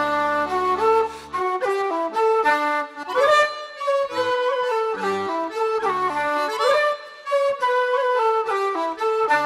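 Wooden flute playing a traditional tune in quick, changing notes, with low held accompanying notes beneath it in places.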